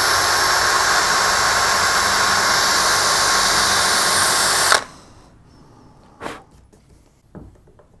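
DeWalt 18V cordless combi drill running at a steady speed, boring a pilot hole for a hinge screw into a softwood door edge; it stops abruptly about five seconds in. Two light knocks follow.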